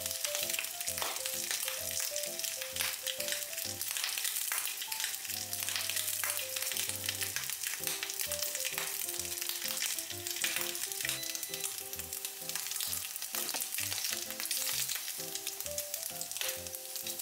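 Ham slices sizzling in a hot nonstick frying pan, spitting and popping loudly many times over a steady frying hiss.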